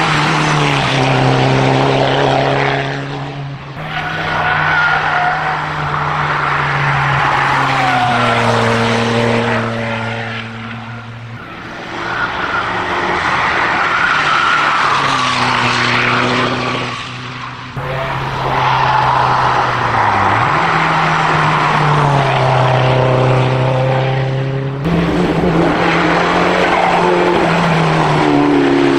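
Rally cars driven hard one after another on a hill-climb course, each engine revving high, its pitch stepping up and falling back with gear changes. The loudness dips briefly between cars, four times.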